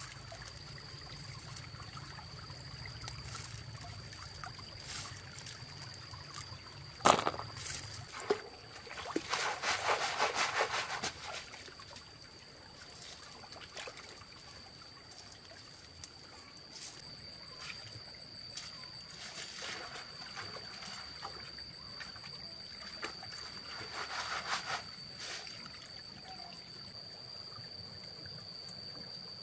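Water trickling, with splashing now and then, the loudest stretch about a third of the way in, over a steady high-pitched tone.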